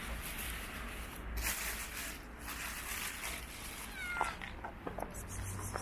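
A brief, high, thin animal cry that falls in pitch about four seconds in, over a steady background hiss, followed by a few small clicks.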